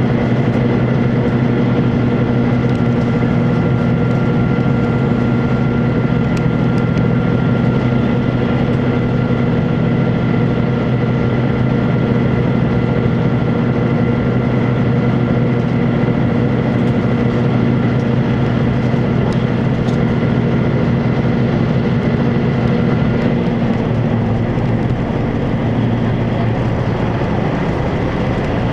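Inside the passenger car of a Chizu Express HOT7000-series diesel multiple unit running at speed: a steady drone from the diesel engines with a few held tones over it, under continuous rail and wheel noise. A few seconds before the end the held tones fade out and the drone settles lower.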